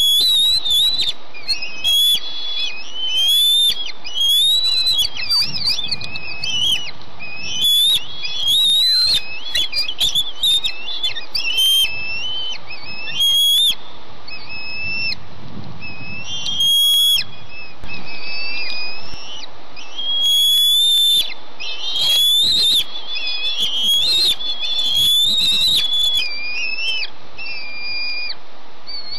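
Bald eagle eaglets begging for food: long series of short, high, thin whistled chirps and squeals, each rising and falling in pitch, over a steady background hiss.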